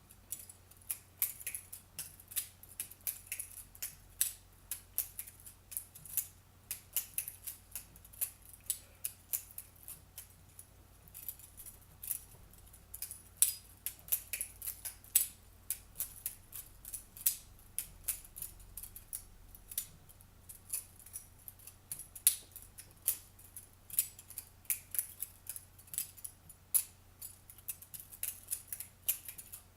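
Butterfly knife (balisong) being flipped: quick, irregular metallic clicks as the handles swing round and knock against the blade and pins, several a second with short pauses between runs.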